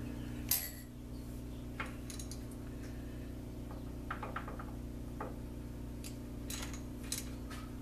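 Light metallic clicks and taps of tools and fittings being handled on a metal lathe as its stop is reset, with one sharper click about half a second in, over a steady low hum.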